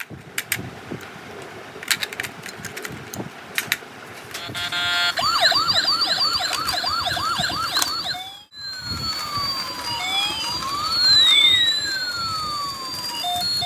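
Handling clicks, then a toy police car's electronic siren sounds: first a fast repeating warble, then after a brief break a slower wail that rises and falls. The siren working is the sign that the toy runs again on its new battery.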